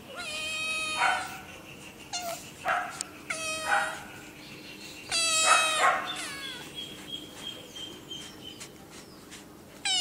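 Kittens meowing insistently: about six short, high-pitched meows in the first six seconds, some falling in pitch at the end, and one more at the very end.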